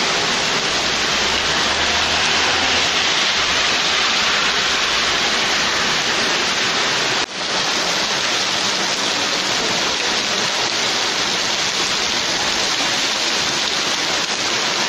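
Heavy downpour: a steady hiss of rain pouring onto the pavement. The sound cuts out for an instant about seven seconds in, then carries on the same.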